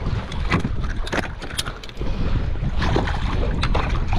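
Wind rumbling on the microphone, heavier from about two seconds in, with irregular clicks and clatter of fishing tackle and pliers being handled on a kayak.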